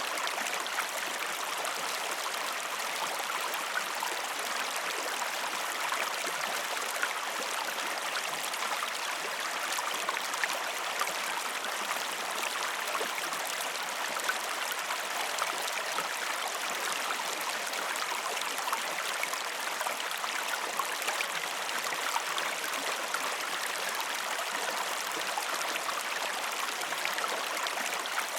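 A river's water flowing and splashing over rocks: a steady, even rush with small splashes and gurgles.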